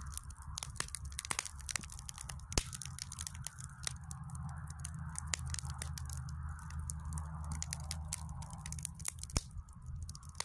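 Burning logs in a wood fire crackling and popping: frequent sharp snaps at irregular intervals over a low steady rumble, with one especially loud pop about two and a half seconds in.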